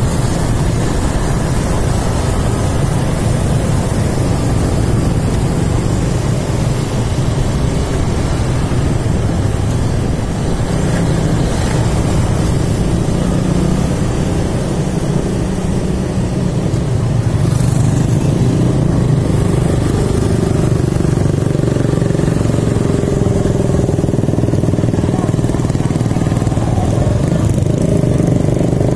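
A motorcycle being ridden at a steady pace, heard from the rider's seat: its engine running with road and wind noise as a continuous low rumble that grows slightly louder a little past the middle.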